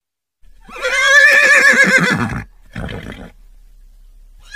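A horse whinnying: one long, loud call with a quavering pitch starting about a second in, followed by a shorter, fainter sound.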